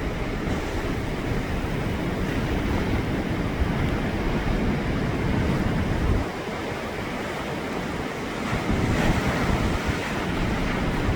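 Storm waves on a big lake surging in and crashing against the shore, with wind buffeting the microphone. The low rumble eases about six seconds in, and a fresh wash of surf comes in around nine seconds.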